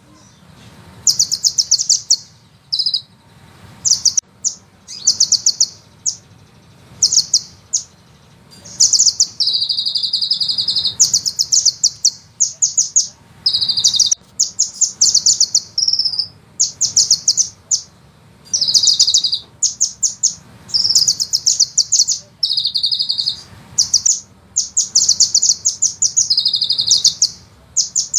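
Sunbird song: fast, high trills in short bursts and longer rolling runs, repeated with brief pauses.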